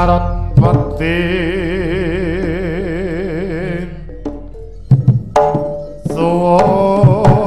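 Live jaranan gamelan music: a melody with a long held note, its pitch wavering evenly, over drum strokes that come more thickly in the last few seconds.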